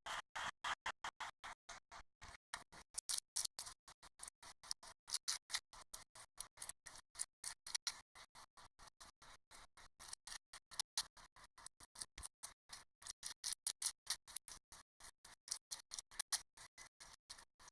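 Slime being squished and poked by hand, making a fast, uneven run of small clicks and pops, about five or six a second.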